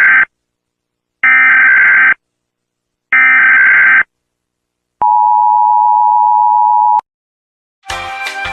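Electronic beeps: three buzzy beeps about two seconds apart, then one long steady beep lasting about two seconds. Music starts near the end.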